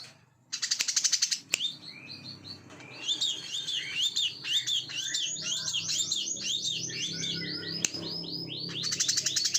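Brown-throated sunbird (kolibri kelapa) singing. A fast buzzy trill comes about half a second in, then a long run of quick, arching high chirps, and another fast rattling trill near the end.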